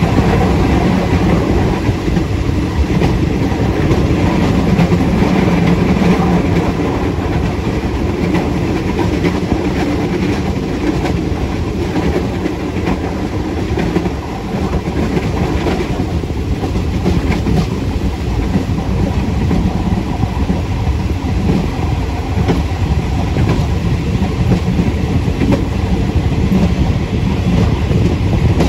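Passenger train running along the line, heard from the last carriage: steady wheel and track rumble with continuous clickety-clack of the wheels over the rails.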